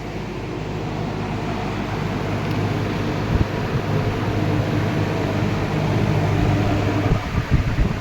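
1965 Penncrest 300 box fan's permanent split capacitor motor running on high speed, a steady motor hum under the rush of air from the blades. Near the end the steady hum gives way to uneven gusts of air buffeting the microphone.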